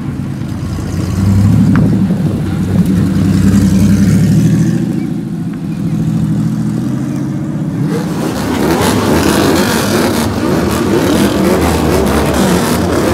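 Porsche 911 flat-six running as the car pulls off and drives away at low speed. About eight seconds in, this changes to a group of bosozoku motorcycles revving, engine pitch rising and falling.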